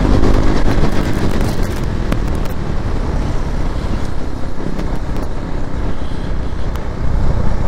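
KTM Duke 390's single-cylinder engine running under way with road and wind noise, the engine note easing off as the bike slows.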